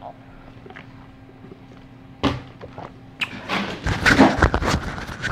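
Handling and movement noise close to the microphone: a sharp knock a little over two seconds in, then a dense run of thumps, bumps and rustling as a person gets up from the table right beside the camera.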